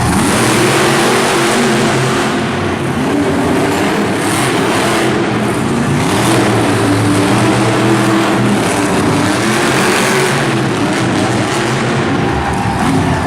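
Monster truck engines running hard and revving during a race, with a wavering engine note over a steady loud haze.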